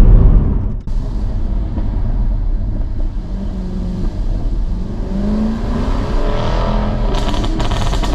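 Jaguar F-Type R's supercharged 5.0 V8 exhaust, loud at first and dropping off sharply a little under a second in, then running with a rising engine note. A quick series of sharp crackles and pops from the exhaust comes near the end.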